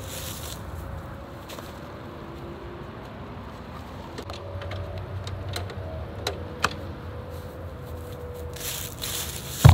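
Grass-catcher bag being fitted onto the rear of a Toro Recycler 22-inch push mower: a few sharp plastic clicks and scrapes and rustling of the bag fabric, over a steady low traffic hum.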